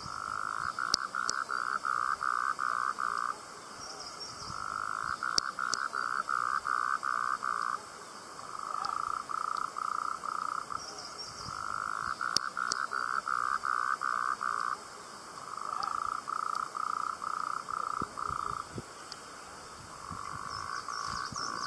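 A frog calling in repeated trains of evenly spaced pulsed notes, about three a second. Each train lasts a few seconds and is followed by a pause of about a second, about six times in all.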